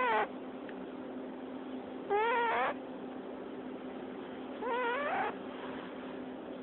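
Sleeping cat's squeak-snore: a short, rising, squeaky call of about half a second with each breath, repeating about every two and a half seconds. There are two full squeaks, and the tail of another at the very start.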